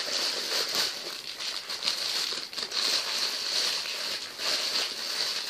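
Clear plastic bag crinkling and rustling irregularly as a squishy toy wrapped in it is handled.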